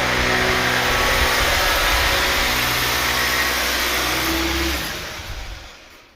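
A machine's motor running steadily and loudly with a low hum, then switched off about five seconds in and running down to quiet over the next second.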